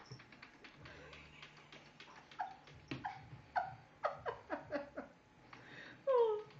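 Domestic cat chirping in a run of short calls that fall in pitch, then a louder, longer falling meow near the end: the chirping a cat makes while watching goldfish it cannot reach.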